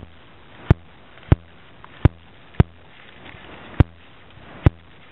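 About seven sharp clicks, roughly one every half second to a second, over a faint steady low hum and room noise. The clicks run on through the speech around them and reach above the audio's bandwidth ceiling, the mark of digital glitches in the recording rather than anything being handled.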